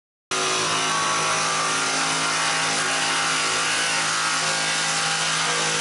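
Cordless oscillating multi-tool running steadily as its blade cuts through fibreglass-covered wooden cockpit coaming. It starts abruptly about a third of a second in.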